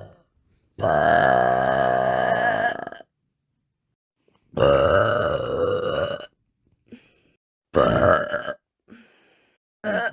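Female burping: a long drawn-out burp of about two seconds, a second long burp, a shorter one, and a brief one at the very end.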